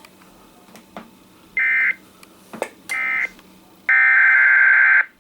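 Emergency Alert System SAME header data bursts coming through a radio: harsh, buzzy digital screeches. Two short bursts come about a second and a half and three seconds in, then a longer one of about a second from four seconds in, over faint receiver hiss with a few clicks.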